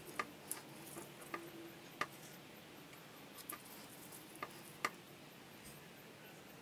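Faint, irregular light clicks and taps, about seven in all and mostly in the first five seconds, as a small pointed scraping tool is worked over a freshly sprayed painting to scratch fine lines into the paint.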